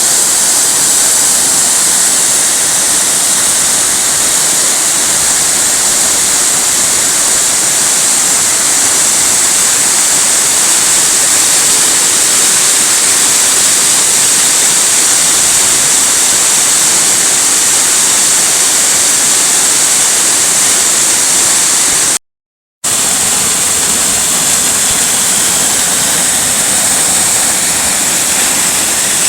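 Waterfall: a loud, steady rush of falling water. It cuts out for about half a second after about 22 seconds.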